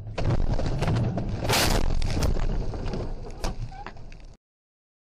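Truck collision picked up by a dashcam in the cab: loud crashing noise with a string of bangs and knocks, loudest about a second and a half in, and then the sound cuts off abruptly.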